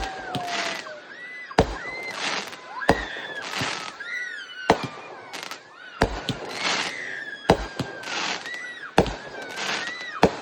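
Consumer fireworks going off: about eight sharp bangs, roughly one every second and a half, with hissing crackle and high whistles that rise and fall between them.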